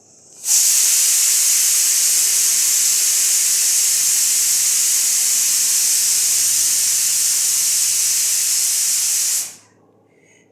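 A loud, steady hiss that starts about half a second in, holds level for about nine seconds and cuts off sharply near the end.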